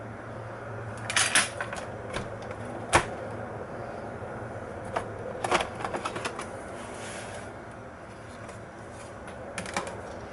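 Irregular clicks and light clatters of small hard plastic and metal laptop parts and tools being handled during a CPU upgrade, with one sharp click near three seconds and a quick run of clicks around five to six seconds, over a steady low hum.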